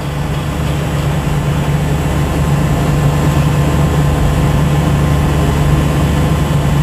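A steady low droning hum, like machinery running, that swells slightly over the first couple of seconds and then holds even.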